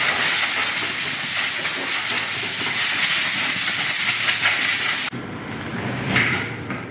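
Compressed air hissing hard and steadily from a blow gun as it cleans a dust collector's filter and bag, cutting off suddenly about five seconds in.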